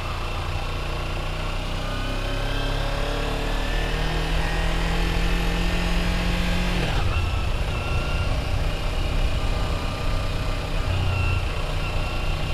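Sport motorcycle's engine pulling up through the revs, its pitch rising slowly for about seven seconds, then a gear change and steady running. Wind rushes over the microphone throughout.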